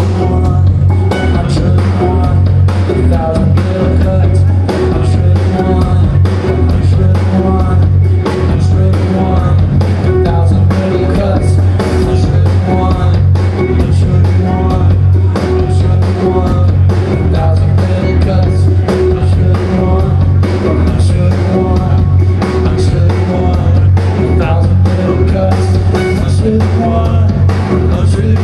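A rock band playing live: electric guitars, keyboards and drum kit with a singer, loud and continuous with a heavy, steady low end.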